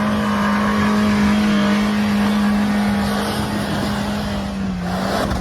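Suzuki Jimny 4x4's engine running at steady high revs, its pitch holding level and dipping briefly near the end.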